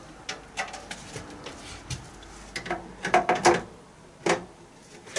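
Front cover panel of a Baxi combi boiler being handled and fitted back onto the casing: a scatter of light clicks and knocks, densest about three seconds in, with one more knock a second later.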